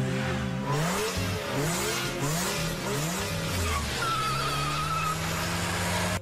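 Volkswagen Golf engine revving up in quick repeated rises, then a steady high squeal of spinning front tyres: a burnout with tyre smoke.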